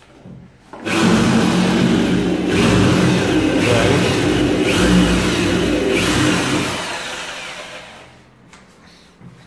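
Electric drill running under load for about six seconds, its bit drilling out a steel rivet in a pocket-door frame, then winding down.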